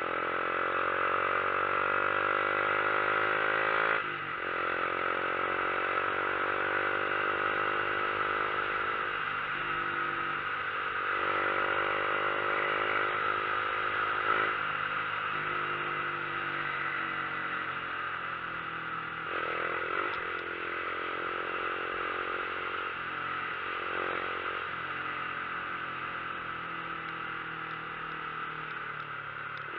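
Motorcycle engine running under way, its pitch slowly sinking after a brief break about four seconds in, with heavy wind rush over the microphone.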